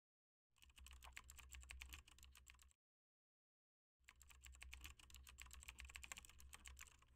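Faint typing on a computer keyboard: two runs of rapid keystrokes, with a pause of about a second and a half between them.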